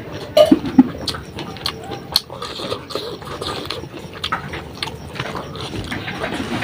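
Close-miked sounds of a person eating beef curry: chewing and wet mouth clicks scattered throughout, with two loud short sounds just under a second in.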